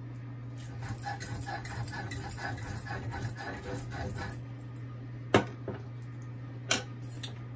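Stone roller rubbing back and forth on a flat stone grinding slab (shil-pata), grinding dried fish for a few seconds. Then two sharp knocks of stone on stone, about a second and a half apart.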